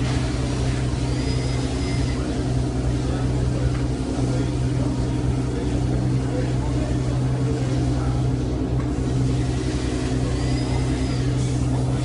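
A racing car engine idling with a steady low hum, with a couple of brief rises and falls in pitch near the start and end, over people talking.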